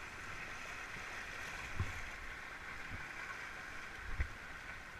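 Shallow river rapids rushing and splashing steadily around an inflatable raft, with two dull thumps, one just before two seconds in and one a little after four seconds.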